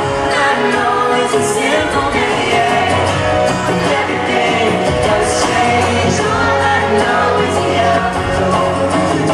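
Live pop duet: singing over two strummed acoustic guitars, amplified through an arena sound system.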